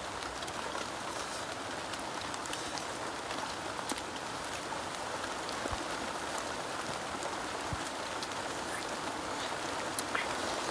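Steady hissing outdoor noise, much like light rain or running water, with a few faint clicks scattered through it.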